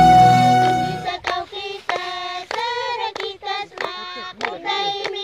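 A flute tune ends about a second in, and then a group of women and a small girl sing a folk song in high voices while clapping their hands.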